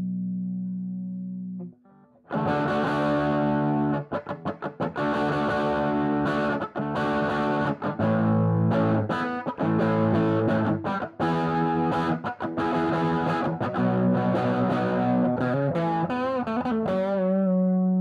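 Electric guitar played through the SAE Effects Big Red, a dual germanium boost and overdrive pedal that clones the Red Rooster and Red Llama, into a Bluesbreaker-style amp, giving a gritty, distorted rock tone. A held chord breaks off about two seconds in. A choppy riff of chords with short stops follows, and near the end a chord is shaken with vibrato and left ringing.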